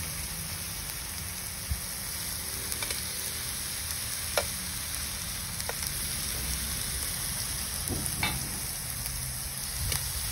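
Ribeye and pork belly slices sizzling on a hot Korean barbecue grill pan as a steady hiss, with a few sharp clicks of metal tongs as more meat is laid on.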